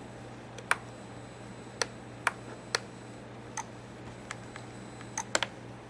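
Computer mouse clicking: about ten sharp, irregularly spaced clicks, with a quick run of three near the end, over a steady low hum.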